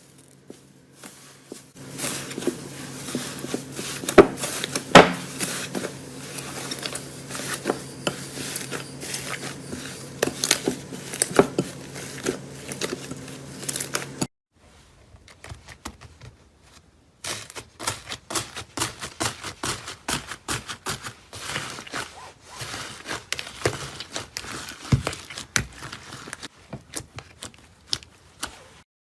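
Slime being squeezed and pressed by hand, giving many irregular sticky crackles and clicks. The sound breaks off about halfway and resumes after a short quiet gap.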